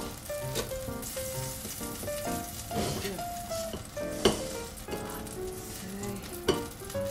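Freshly pan-fried thick deep-fried tofu, still hot from the pan, sizzling steadily on the plate while a knife cuts through its crisp crust, with two sharp clicks about four and six and a half seconds in.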